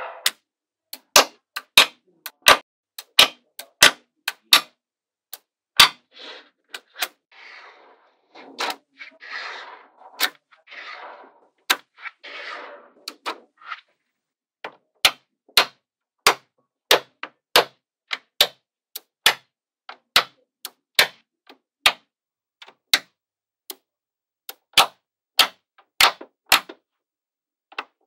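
Small magnetic balls snapping together one after another as they are placed, in sharp clicks at irregular intervals. Around the middle, a few short rustling sounds fall between the clicks.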